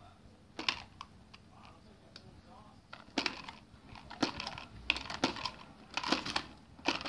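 Plastic clicks, knocks and clatter of a toy garbage truck's lift arm being worked by hand, raising and tipping a plastic toy trash cart. The knocks come irregularly, several in quick clusters, and grow louder and closer together toward the end.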